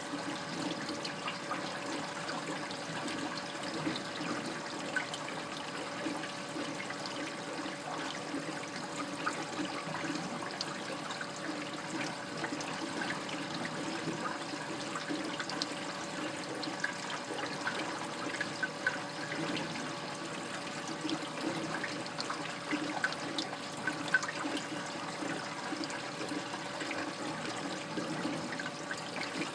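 Water in an aquarium sump, running and trickling steadily with scattered small drops, over a faint steady hum.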